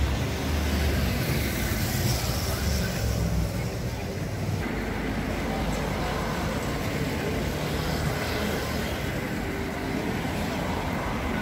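Town-centre street ambience: cars driving past close by, their low engine and tyre rumble heaviest in the first few seconds, with people talking in the background.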